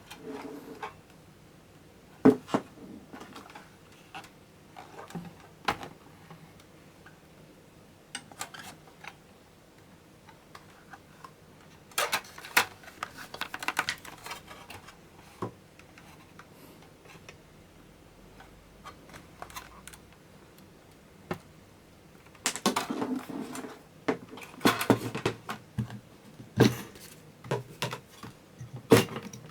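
Handling noise: scattered sharp clicks and knocks of hard objects, with two spells of rapid clattering, about 12 s and 23 s in.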